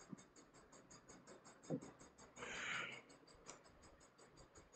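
Near silence: room tone, broken by a soft, short low thud just under two seconds in and a brief hiss about half a second later.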